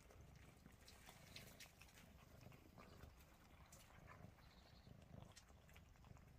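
Faint, irregular small clicks and smacks of several cats eating a snack together from one bowl.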